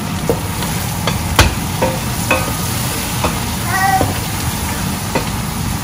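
Wooden spoon stirring gizzards and vegetables frying in butter in a stainless steel pot: a steady sizzle with scattered knocks and scrapes of the spoon against the pot, the sharpest about a second and a half in.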